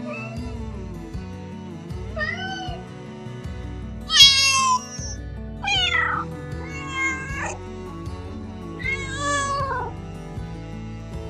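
Domestic cat meowing repeatedly, about five or six separate meows with the loudest about four seconds in, over background music.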